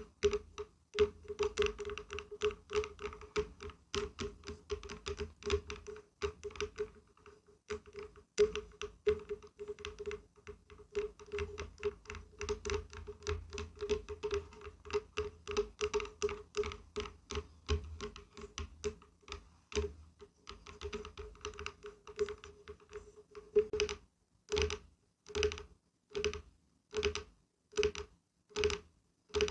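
Tapping on wood: quick, uneven taps with a steady hollow ring. About four-fifths of the way through it changes to slower, evenly spaced knocks, about one and a half a second.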